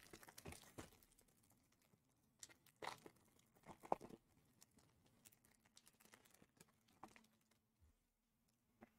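Faint crinkling and tearing of a trading-card pack wrapper being ripped open by hand, a few short crackles with a cluster about three to four seconds in, then light rustles as the cards are handled.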